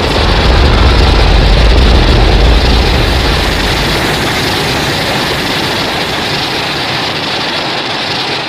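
Giant-monster sound effect: a loud, steady rushing rumble with heavy bass and no clear pitch, which cuts in suddenly, eases off slightly after two or three seconds and fades out at the very end.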